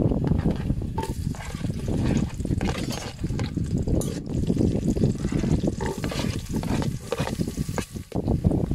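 Sliced onion and green chili scraped with a spoon into hot oil and garlic in an aluminium pot, sizzling as they are stirred, with scattered crackles over a steady low rumble.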